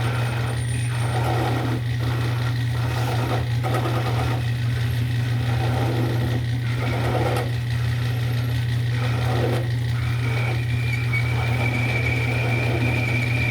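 Small lathe running with a steady low motor hum while a cutting tool shaves the back side of a harmonica slide button, the cutting heard as irregular scraping passes. About ten seconds in, a thin high whine joins it.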